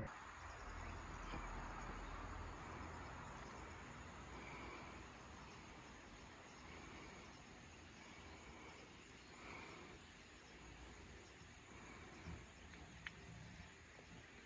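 Quiet outdoor ambience: a steady high-pitched insect drone, with a faint low rumble fading away over the first few seconds. A few soft chirps come through, and there is a small click near the end.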